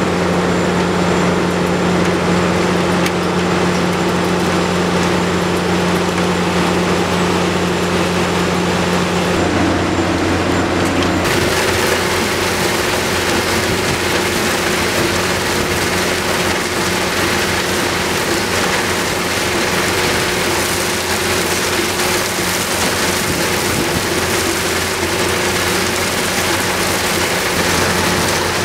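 Terex Pegson 4242SR mobile impact crusher running while it crushes limestone into sub-base, a steady heavy engine and crusher drone. About 11 seconds in, a dense rain-like hiss of crushed stone pouring off the discharge conveyor onto the stockpile joins the drone.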